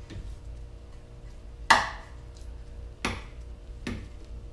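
Ratchet and socket on a brake caliper bolt: three sharp metallic clicks and knocks, the loudest about two seconds in, as the bolt is worked in by hand.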